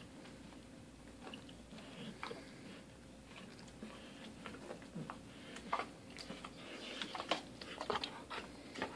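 A dog chewing something, its teeth making irregular sharp clicks that come thicker and louder in the second half.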